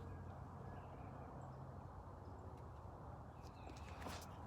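Quiet outdoor background: a steady low hum under a faint even hiss, with a few faint rustles near the end.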